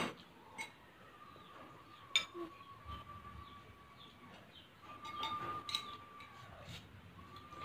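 A metal spoon clinking a few times against a small glass bowl, over a faint, steady high-pitched tone that fades in and out.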